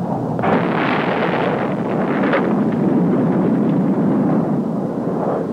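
Heat-seeking missile's rocket motor and its burst on the target: a loud, noisy roar that starts abruptly about half a second in, with a brief crack a little past two seconds.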